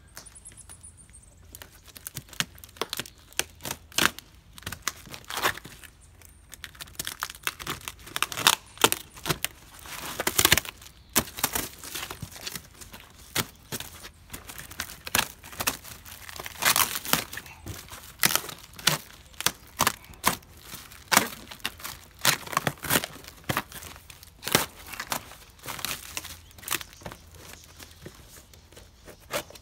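Taped cardboard and plastic-film packaging being cut and torn open by hand: a long run of irregular ripping and crackling sounds.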